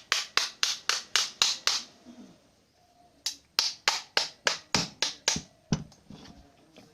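Two quick runs of sharp taps, about four a second, each run about eight strikes long with a short pause between.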